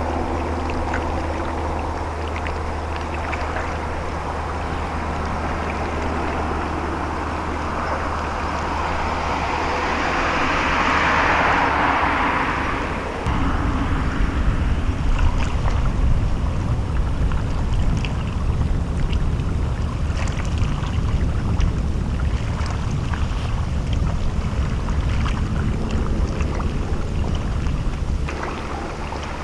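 A boat's engine hum and water wash as the YDT01 comes into port, with a rushing swell about ten seconds in. From about halfway, wind buffets the microphone with a rough low rumble.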